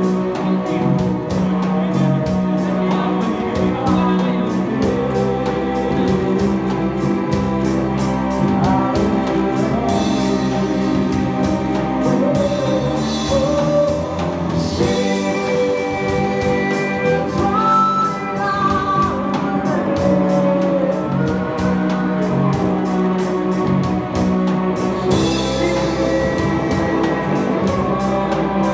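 Live band playing a song, with a drum kit keeping a steady cymbal beat under a sung melody.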